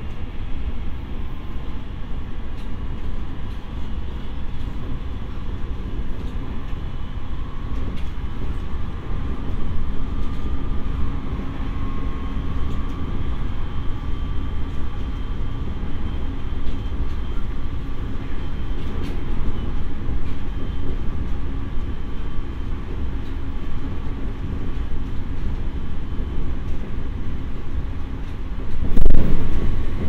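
Running sound inside the JR East E501 series electric motor car MoHa E501-2 at speed: a steady heavy rumble of wheels on rail with a faint whine from the traction motors. About a second before the end, a sudden loud rush.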